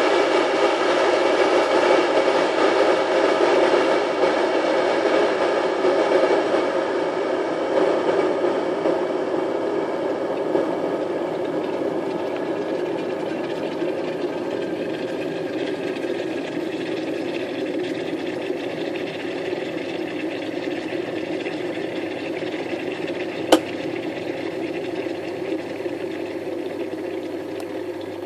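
Kettle full of water at a rolling boil: a steady bubbling rush that slowly fades. One sharp click comes near the end.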